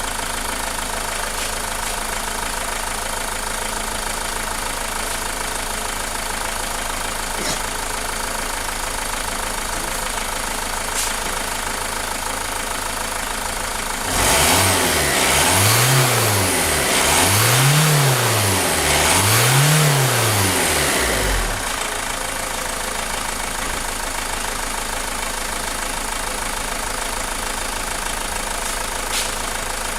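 Renault Mégane II engine idling, then revved three times in a row about halfway through, each rev rising and falling back, before settling to idle again. The engine has a shaking vibration and lacks power, and a cylinder fault is being traced by unplugging the connectors one at a time.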